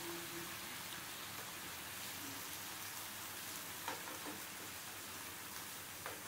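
Pumpkin and potato pieces frying in oil in a non-stick pan, a faint steady sizzle. A couple of soft knocks from a wooden spatula about four seconds in.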